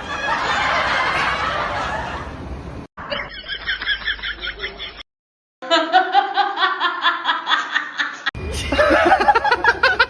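People laughing in several short spliced clips: rhythmic bursts of laughter with abrupt cuts between them and a brief dead-silent gap about five seconds in.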